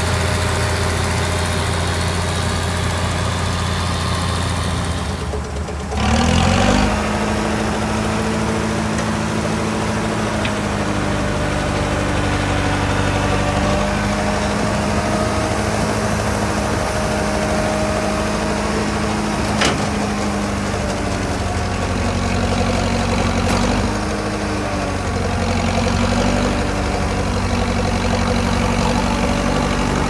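A Michigan wheel loader's engine running as it drives. About six seconds in, this gives way to the engine of a 1956 Lorain TL25 crawler crane working a scoop shovel, running steadily with its pitch dipping and recovering a few times, and one sharp click.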